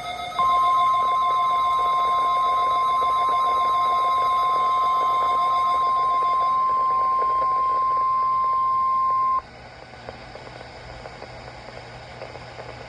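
NOAA Weather Radio warning alarm tone, the 1050 Hz signal that switches on weather alert receivers, sent here as a test. It is a single steady tone held for about nine seconds, then cuts off suddenly, leaving radio hiss.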